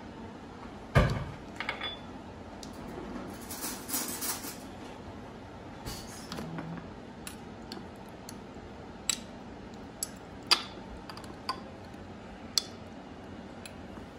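Dishes and a utensil handled on a countertop: a heavy knock about a second in, a short rustle around four seconds, then a scattered series of sharp clinks.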